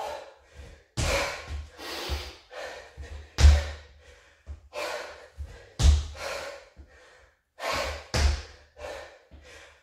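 Feet landing from hops on a wooden floor, a dull thump four times about every two and a half seconds, with hard breathing between the landings during reverse lunge hops.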